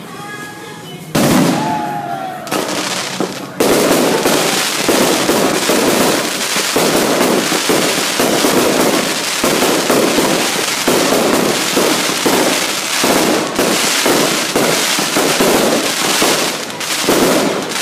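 Fireworks display: a loud bang about a second in, then from about three and a half seconds a continuous rapid barrage of bursting shells and crackling that keeps going.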